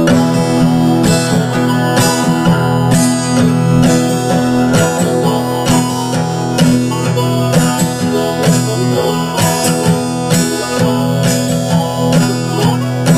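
Acoustic guitar strummed steadily, playing a folk tune with no voice.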